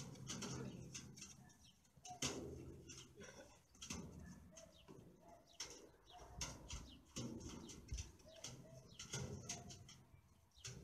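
Faint knocks and scuffs of feet and dog paws on a sheet-metal platform, with a few short soft calls in between.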